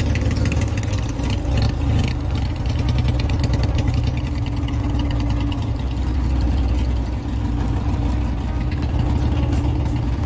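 Royal Enfield Bullet's single-cylinder engine idling steadily, with the bike in gear so that the rear wheel and chain turn.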